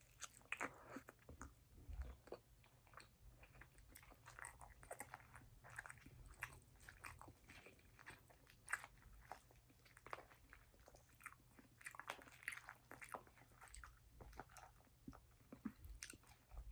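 A person eating close to the microphone: quiet chewing with many small wet mouth clicks and bites, scattered irregularly through the pause, from a poke bowl meal.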